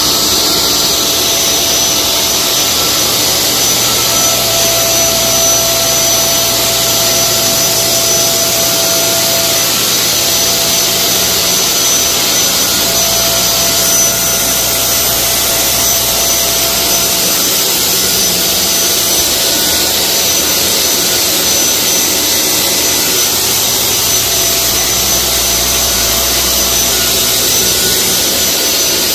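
Fogging machine spraying deodorising mist: a steady, loud blowing motor noise with a strong hiss and a faint whine.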